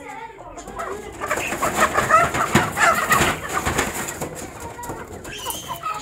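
Aseel chickens clucking and calling together, busiest and loudest from about one to four seconds in, with scratchy clicks and clatter mixed in.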